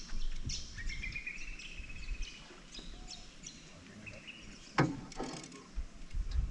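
Wild birds calling: a rapid trill about a second in, scattered short high chirps, and a louder call sliding down in pitch near five seconds.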